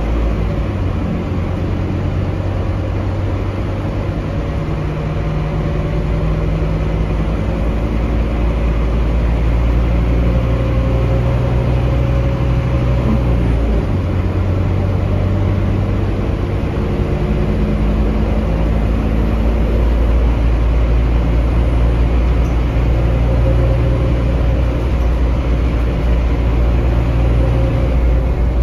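Scania K310UB bus's DC9 five-cylinder diesel running under way, heard inside the passenger cabin over road and tyre noise. The engine note climbs slowly, then drops suddenly about halfway through as the ZF Ecolife automatic shifts gear, and climbs again.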